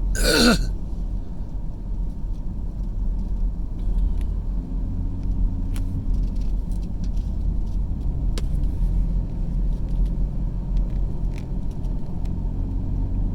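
Steady low road and engine rumble of a car driving, heard from inside the cabin. It opens with a brief loud sound sweeping down in pitch.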